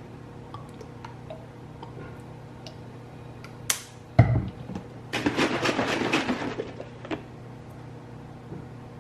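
Kitchen handling sounds while setting up an iced coffee maker: a click, then a thud, then about a second and a half of water being poured, over a steady low hum.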